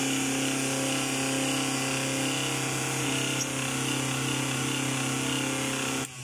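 Mixer grinder's motor running steadily at speed with a smooth, even hum, on a freshly fitted bush. The rasping kharkhar noise from the old cut bush is gone, leaving only the motor's own running sound. It is switched off near the end, and the sound drops suddenly.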